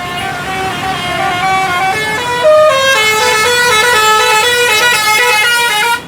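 Bus's 'basuri' telolet horn playing a quick melody of stepped notes, several tones sounding together. It gets louder about two and a half seconds in and cuts off suddenly just before the end.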